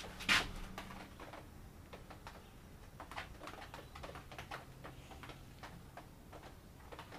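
Faint scattered clicks and light taps of a small plastic spreader working two-part epoxy glaze coat along a table edge, with one sharp knock just after the start.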